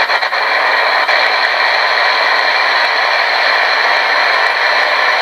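Portable radio used as a spirit box, giving out steady loud static hiss between stations, with a few faint clicks near the start.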